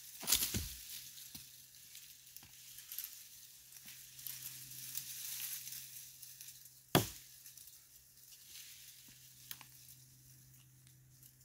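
Crackling, rustling noise of brush and dry leaves being worked, broken by two sharp knocks, one just after the start and a louder one about seven seconds in.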